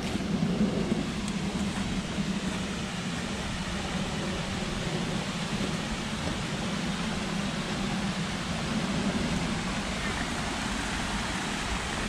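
Steady rushing of a small waterfall and its stream pouring over rocks.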